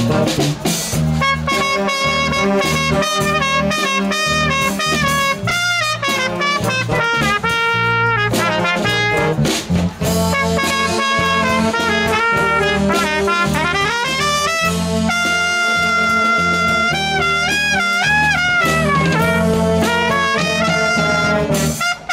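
Trumpet solo over a jazz big band, the saxophones and rhythm section accompanying. The trumpet moves between held notes and slides up and down in pitch at several points.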